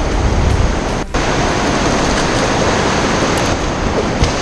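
Surf washing through foaming white water over shore rocks: a loud, steady rush of water noise, with one brief dip about a second in.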